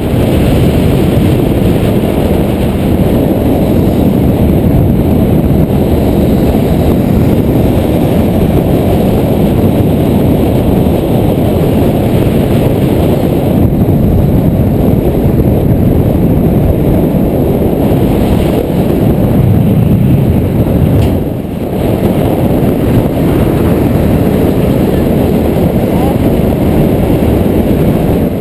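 Loud, steady wind rush buffeting a GoPro's microphone at riding speed, with road and engine noise of the ride and nearby motorbikes mixed under it. It eases briefly about three quarters of the way through.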